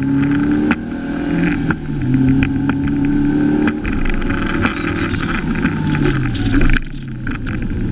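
Fiat Cinquecento rally car engine heard from inside the car, pulling hard with rising pitch, breaking off at a gear change about a second in and climbing again, then easing off with falling pitch over the second half. Short knocks and rattles from the car run throughout.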